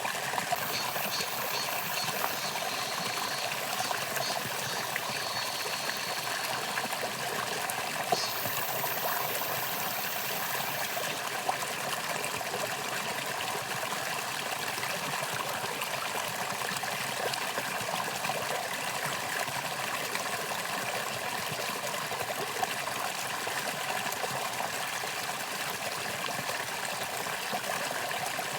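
Valley stream flowing steadily, a continuous rushing and trickling of water.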